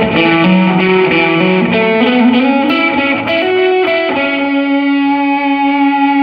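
Electric guitar with distortion through a Line 6 POD Go modeler playing a lead lick: a run of single notes with a rising bend near the middle, ending on a long sustained note from about four seconds in.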